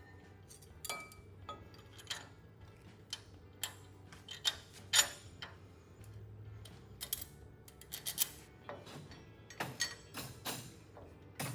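Irregular metallic clicks and clinks of brake-kit hardware and hand tools being handled and fitted, some in quick clusters and a few sharper knocks.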